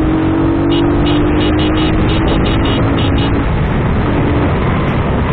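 Wind and road noise on a motorcycle-mounted camera while overtaking a box truck, with a steady drone, falling slightly in pitch, that stops about three and a half seconds in as the truck drops behind.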